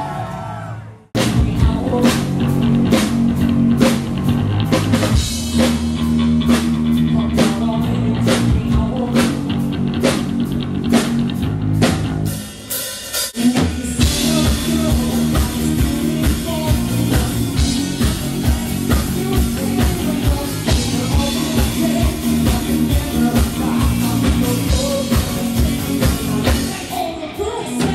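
Live rock band playing: drum kit, electric guitar and a singer, heard from among the audience. The music breaks off briefly about a second in and dips again near the middle.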